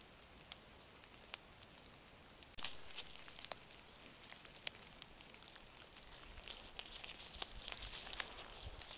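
Faint steady hiss with a couple of isolated clicks. Then, from about two and a half seconds in, a roe deer is right against the trail camera, its fur and head brushing the housing. It makes soft rustling and many scattered clicks that grow busier and stronger toward the end.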